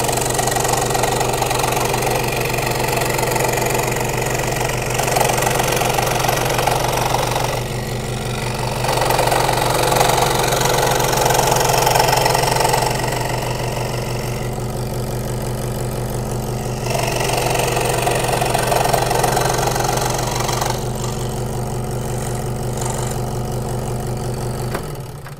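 Electric scroll saw running, its reciprocating blade cutting a curved line through plywood. The steady machine hum carries throughout, with the cutting noise growing louder in stretches as the workpiece is fed and turned into the blade.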